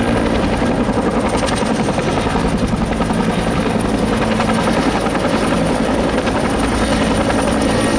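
Firefighting helicopter with a two-bladed main rotor hovering in place, its rotor chopping steadily over a thin high turbine whine.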